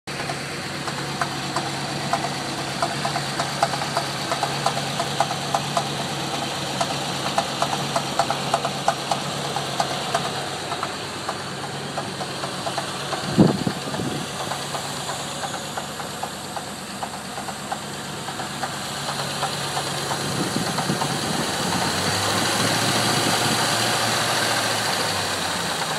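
Land Rover Discovery's 3.9 V8 running with a rapid, regular clunking knock, in an engine that has hydrolocked a cylinder. One heavier thump comes about halfway through, and the engine gets louder in the last few seconds.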